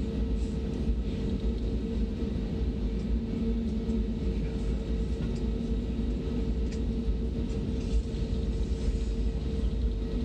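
Cabin noise of an Airbus A320 taxiing: a steady low rumble from the engines and undercarriage, with a constant mid-pitched hum over it.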